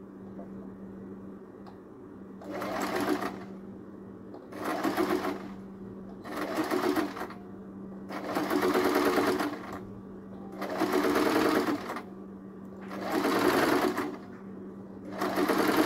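Compact electric sewing machine stitching in short runs: about seven bursts of a second or so each, the first about two and a half seconds in, with pauses between them and a steady low hum underneath.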